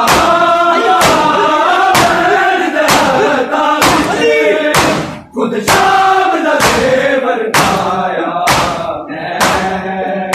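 Muharram matam: a crowd of men slapping their bare chests with open hands in unison, sharp strikes about once a second, over men chanting a lament together. The rhythm falters briefly about five seconds in.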